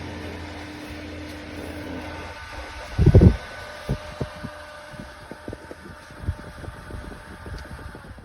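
Small round electric exhaust fan running with a steady hum and motor whine, the sound the reviewer calls quite loud. About three seconds in there is a loud low thump, followed by irregular light clicks and taps.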